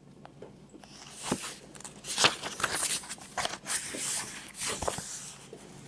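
Book pages being turned and flipped by hand: a run of papery rustles and crackles starting about a second in and lasting some four seconds.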